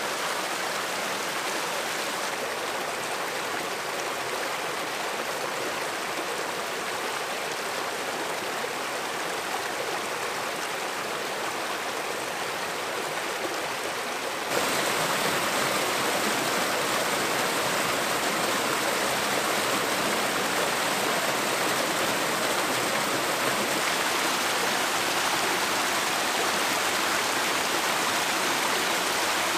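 Stream water rushing and splashing over rocks and small cascades in a steady rush, which gets abruptly louder about halfway through.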